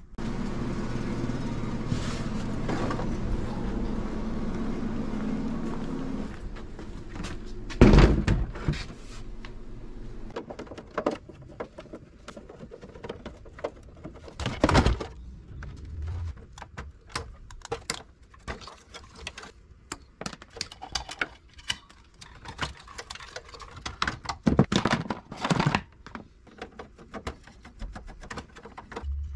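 Hand dismantling of an old CRT television: plastic clatter, clicks and rattles of the casing and hand tools, and a few heavy thunks as the set and its back cover are moved on a plastic tray. The loudest thunk comes about eight seconds in. A steady hum runs for the first six seconds or so.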